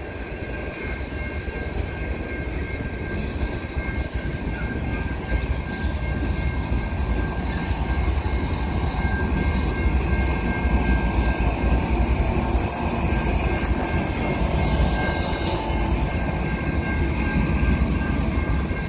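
Freight train cars rolling past on the rails, a dense low rumble of wheels that grows louder over the first half. A steady high-pitched ring runs over it throughout.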